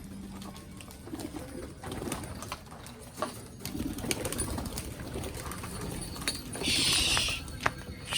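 Domestic pigeons cooing in low, murmuring coos, a few times over. Near the end comes a short, loud burst of rustling, hissing noise.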